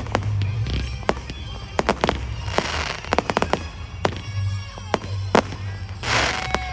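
Fireworks going off: an irregular run of sharp bangs and cracks, with a burst of fizzing hiss about six seconds in.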